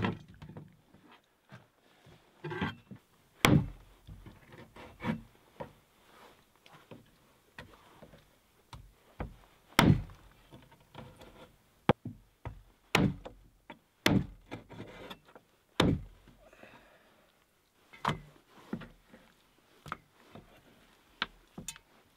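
A Chinese cleaver chopping a raw chicken into pieces on a wooden cutting board: irregular sharp chops, a few much harder than the rest, with softer handling of the meat between them.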